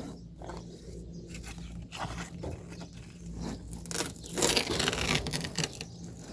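Rotted material being pulled and torn apart by hand: irregular ripping, scraping and crackling, loudest about four and a half seconds in.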